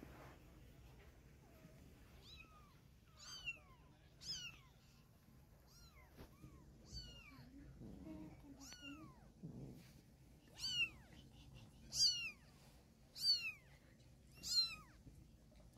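Young kitten mewing over and over, short high cries that fall in pitch, about one a second, louder toward the end, as the mother cat takes it in her mouth.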